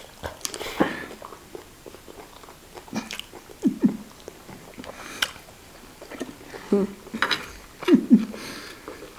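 Close-up eating sounds: biting and chewing of fries and fried beef, with scattered small crunches and clicks. A few brief vocal sounds break in, around four seconds in and near the end.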